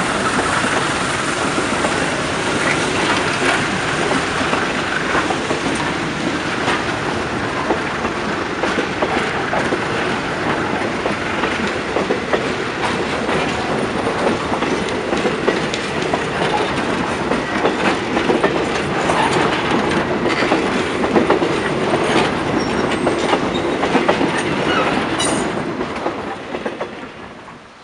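Heritage passenger coaches rolling past close by, their wheels clicking over the rail joints amid a steady rumble of running gear. The noise fades away near the end as the last coach goes by.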